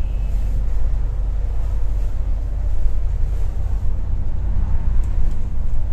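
Steady low rumble of a double-decker bus in motion, engine and road noise heard from inside on the upper deck.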